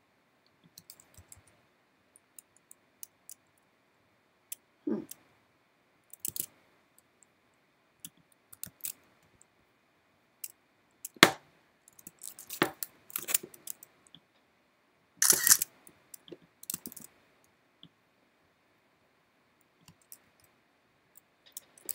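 Sparse, irregular clicks and taps of a computer mouse and keyboard, with a sharp click about eleven seconds in and a denser run of clicks just after.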